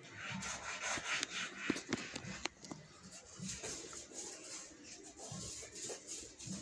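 Toothbrush scrubbing a wooden bed headboard: quick scratchy brushing with scattered clicks and taps, busiest in the first two and a half seconds and then sparser.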